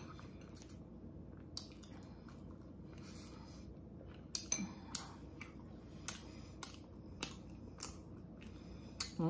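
Close mouth sounds of eating and drinking: quiet sipping through a straw, then from about halfway a string of short, sharp wet clicks and lip smacks of chewing, roughly one every half second.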